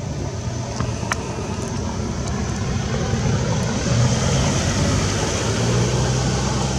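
A motor vehicle's engine running, a low rumble that grows louder about halfway through, with a couple of short clicks about a second in.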